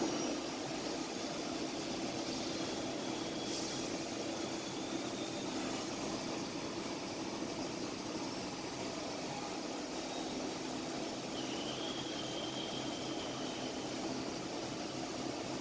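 CNC turning centre machining a bevel gear blank under flood coolant: a steady machine hum with the hiss of coolant spray. A faint high whine rises and then holds for a couple of seconds about twelve seconds in.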